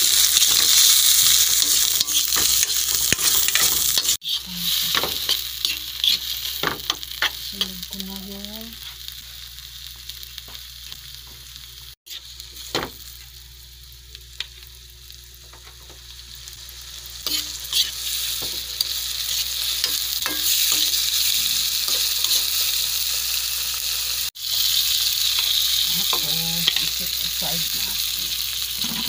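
Carrots, green beans and peppers sizzling in hot oil in a wok as they are stir-fried, with scattered clicks of a spatula against the pan. The sizzle eases off in the middle and comes back loud toward the end, broken by a few sudden cuts.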